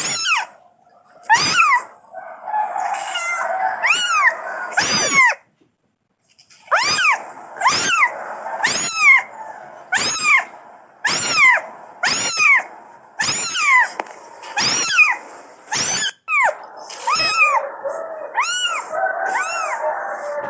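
A kitten meowing over and over, high-pitched calls that each rise and fall, about one a second, with softer, lower mews in between and a short pause about five seconds in. These are a kitten's calls for its mother.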